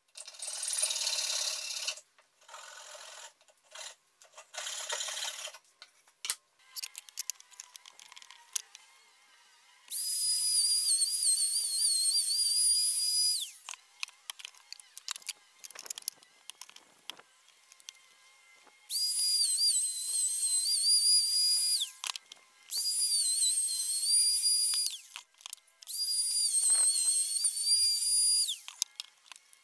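Handheld plunge router running in four bursts of a few seconds each, starting about ten seconds in. It gives a high whine whose pitch dips and wavers as the bit cuts a hand-hole slot in plywood. A few short scraping strokes come in the opening seconds.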